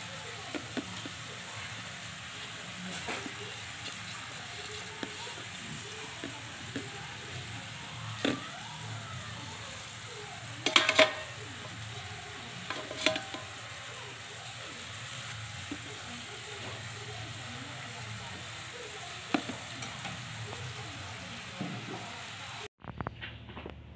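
Steady hiss with scattered light clicks and knocks as the stainless steel steamer basket and nonstick inner pot of an electric cooking pot are handled. The loudest clatter comes about 11 seconds in, with another knock a couple of seconds later. The hiss cuts off suddenly near the end.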